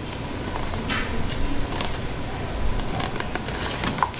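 Tarot cards being handled and laid onto a stack in a cardboard box: a few soft slides and light taps, with a low rumble underneath.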